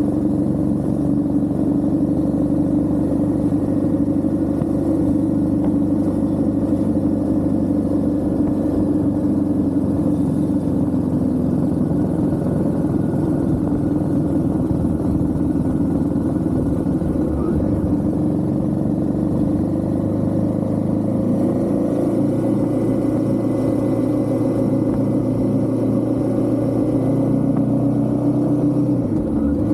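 Royal Enfield Himalayan 450's single-cylinder engine running at a steady cruising pace, its pitch dipping briefly near the end.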